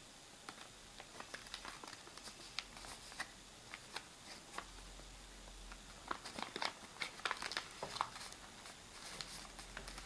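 A sheet of paper being folded and creased by hand, crinkling in short crackles that grow busier and louder about six seconds in.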